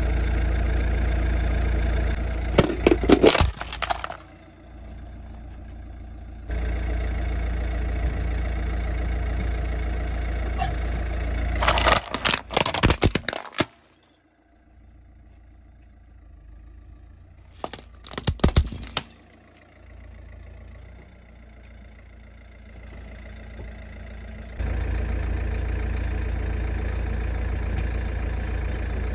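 A car engine running steadily while hard plastic toys crack and crunch under the tyre in three loud bursts of snapping and breaking. Quieter stretches lie between the bursts.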